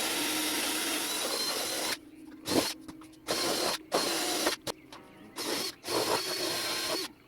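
Power tool running during motorbike assembly: a steady run for about two seconds, then shorter runs broken by sudden gaps.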